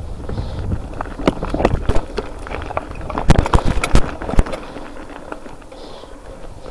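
Mountain bike riding over rough, stony ground: irregular clatter and knocks from the tyres, frame and chain over a steady low rumble. The knocks come thickest about three to four seconds in and ease off near the end.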